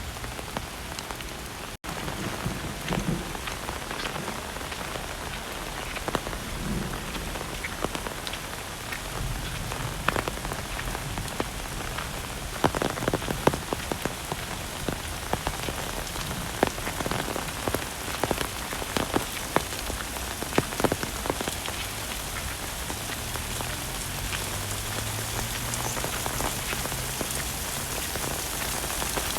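Heavy rain falling steadily, with many sharp, close raindrop hits.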